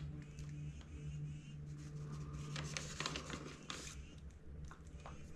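Hands scraping and patting dry garden soil over planted bean seeds: scattered short scratchy scrapes, busiest in the middle, over a steady low hum.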